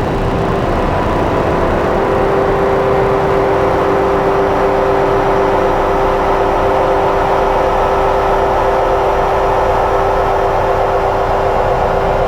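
Electronic synthesizer drone from a Make Noise Strega and Meng Qi Wingie with looped layers: a few held tones over a grainy, noisy wash, with a stronger mid tone swelling in about a second in and holding steady.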